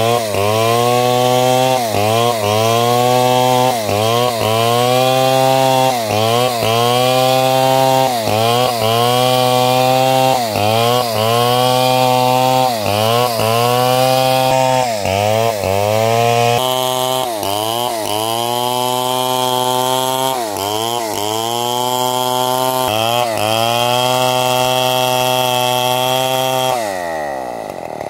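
Chainsaw running at high revs while cutting through large timber, its pitch sagging under load and recovering about once a second. Near the end the revs fall away sharply as the throttle is released.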